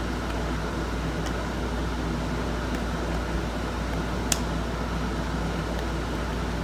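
Steady mechanical hum, like a fan or air-conditioning unit running, with one short sharp click about four seconds in.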